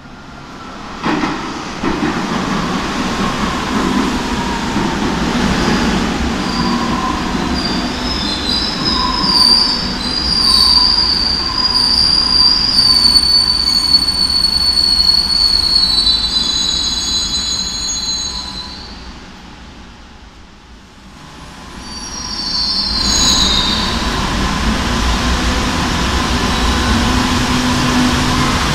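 Madrid Metro Serie 2000 train running into the station and braking to a stop, its wheels squealing at a high pitch through much of the first half. After a break, a brief squeal, then a steady electric hum as a train pulls out.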